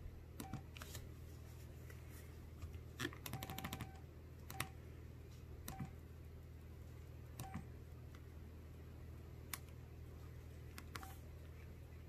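Key presses on an LG enV3 (VX9200) cell phone's keypad while moving through its menus: faint clicks, most with a short beep, spaced a second or more apart, with a quick run of presses about three seconds in.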